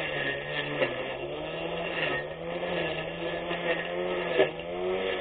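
24V brushless electric lawn mower running, its motor whine sagging in pitch and recovering twice as it cuts grass, with a few sharp clicks.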